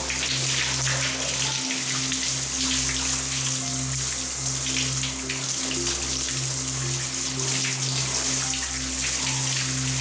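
Water spraying from a handheld shower head onto skin and tile: a steady, even hiss of shower spray. Soft background music with low sustained notes plays underneath.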